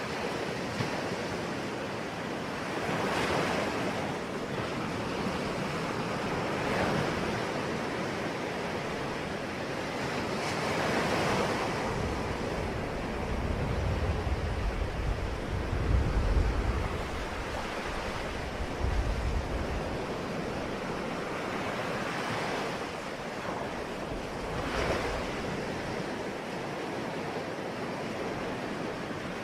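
Ocean waves breaking on the shore, a steady wash of surf that swells every few seconds, with a low rumble of wind on the microphone through the middle.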